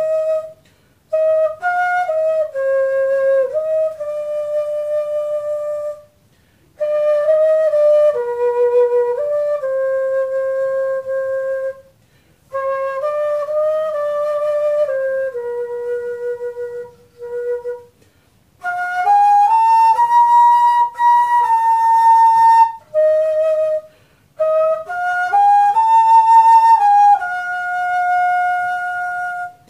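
Homemade transverse flute of 25 mm PVC pipe, tuned in F major, played as a slow melody in phrases of a few seconds with short breath pauses between them. Some notes slide up into pitch, and the loudest phrases carry an airy breath sound.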